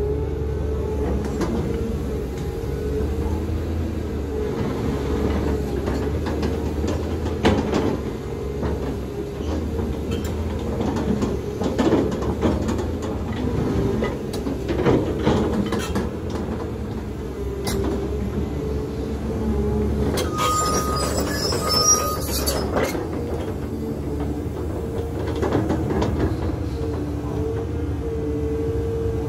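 Caterpillar 320 hydraulic excavator's diesel engine running steadily with a constant hum, while the bucket scrapes and knocks against the soil as it trims a slope. A brief hiss with two short beeps comes about two-thirds of the way in.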